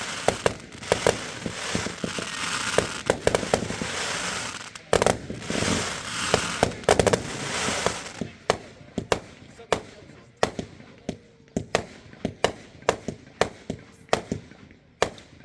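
Aerial fireworks going off: dense crackling mixed with loud bangs for about the first eight seconds, then a steady string of separate sharp bangs, about two a second.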